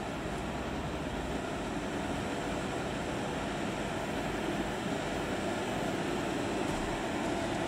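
Diesel engine of a Scania fire engine running in the open station bay, a steady rumble that grows slowly louder.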